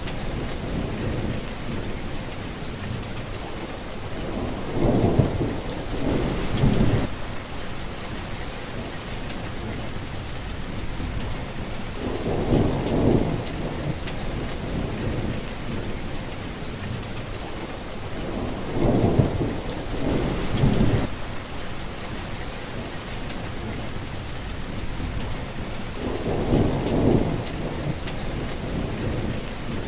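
Steady rain falling on plants. A low rumble swells up and fades about six times, each lasting around a second.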